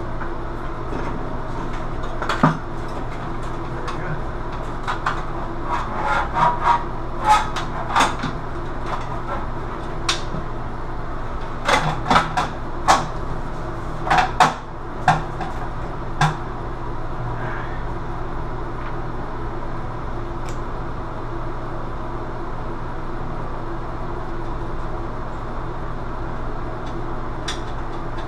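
Scattered sharp clicks and knocks of metal as a bathroom vanity light fixture is handled against its wall mounting plate, mostly in the first half, then only a couple of faint ones. A steady low hum runs underneath throughout.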